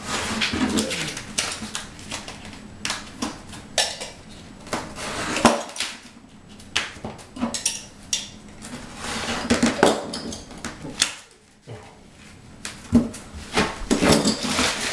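Irregular clicks, scrapes and rustles of hands working self-adhesive edge strip on a plywood floor: cutting it with a utility knife, peeling off the backing and pressing the strip down.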